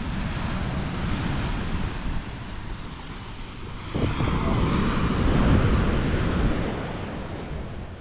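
Waves breaking on a sandy shore, with wind rumbling on the microphone; the sound swells about four seconds in and eases off near the end.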